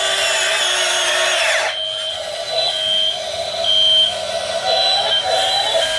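Small electric motors of a 1/16-scale RC excavator whining as it works, the pitch shifting as the controls move: one set of tones slides down and stops about a second and a half in, then shorter whines start and stop.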